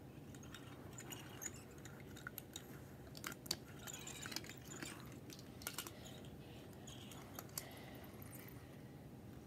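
Faint scattered clicks and clacks of small die-cast toy cars being picked up and knocked together by hand, the sharpest about three and a half seconds in.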